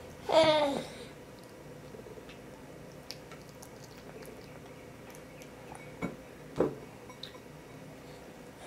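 A one-year-old baby's voice: one short call, about a second long and falling in pitch, right at the start. Then faint small clicks, and two brief vocal sounds about six seconds in.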